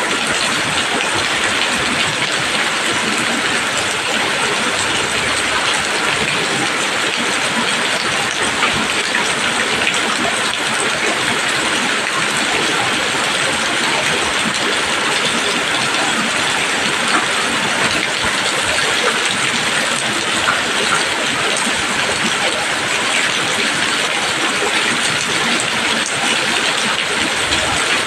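Steady heavy rain falling on leaves, a dense even hiss of countless drops pattering.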